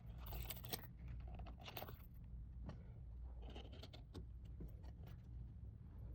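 Small items being handled: irregular light rustling and clinking, busiest in the first two seconds, over a low steady hum.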